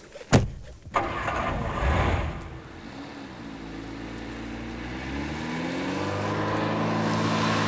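A car door shuts, then the Talbot Solara's four-cylinder petrol engine starts and is revved. The car pulls away, the engine note rising steadily as it accelerates.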